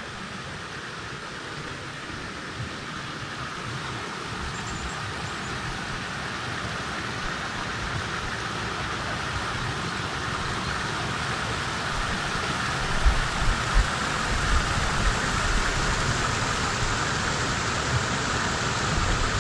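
Small river waterfall rushing over rock steps: a steady noise of falling water that grows gradually louder as the microphone nears it, with a few low thumps about two-thirds of the way through.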